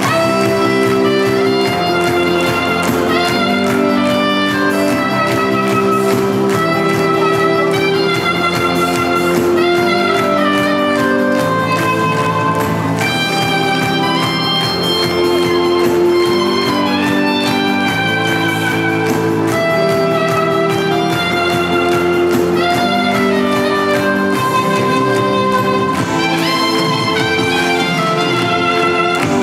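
Live instrumental duo: a soprano saxophone plays the melody over chords and bass from a Yamaha Electone STAGEA electronic organ.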